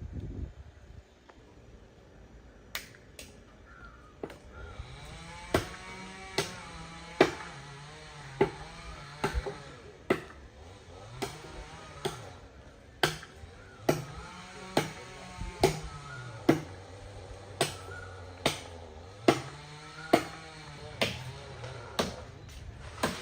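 Sharp knocks at a steady pace, a little more than one a second, over a low droning tone that rises and falls in pitch.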